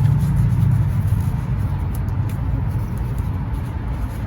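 A low, steady vehicle rumble that slowly fades, with a few faint clicks over it.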